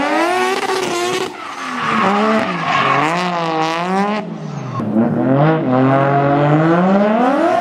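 Drift car's engine revving hard as it slides on the tyres, its pitch swinging up and down several times, with a long steady climb in revs over the last couple of seconds.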